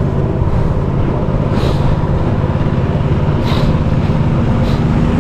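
Motor boat engine running steadily at cruising speed, a constant loud drone with three brief hisses over it.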